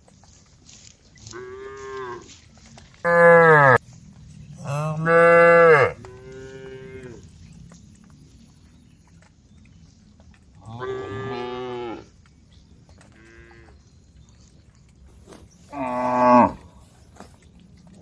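Cows mooing: about seven separate moos of differing pitch and length, the two loudest a few seconds in and another strong one near the end.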